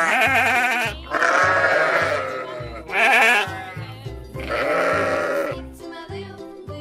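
Sheep bleating, four long wavering bleats one after another, over children's background music with a steady beat. The bleats stop about five and a half seconds in.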